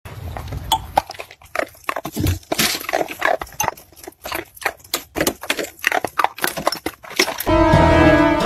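Beagle barking and baying in many short, irregular barks. About seven and a half seconds in, music begins.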